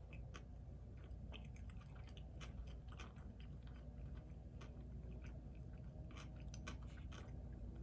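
Close-miked chewing of food, with many small irregular clicks and crunches from the mouth over a steady low hum.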